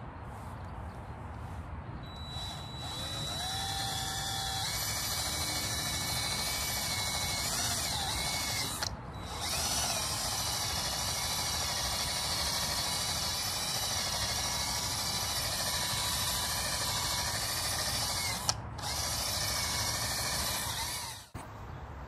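Cordless drill spinning a cotton buffing wheel to polish an aluminium wheel lip with metal polish: a steady motor whine that rises in pitch as it spins up a few seconds in, breaks off briefly twice, and stops just before the end.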